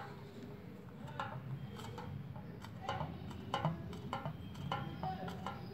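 Hands handling a cut plastic bottle with a balloon stretched over it: irregular light clicks and taps of the plastic, over a steady low hum.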